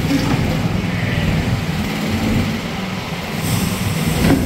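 Mini excavator's small engine running steadily as the machine is driven on its rubber tracks off its shipping pallet, with a short rush of noise and a knock near the end.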